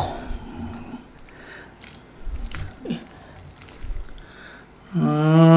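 Wooden chopsticks lifting rice vermicelli out of a glass dish of soup, with soft dripping and splashing of broth and a few light knocks. Near the end a man's voice begins a long drawn-out word.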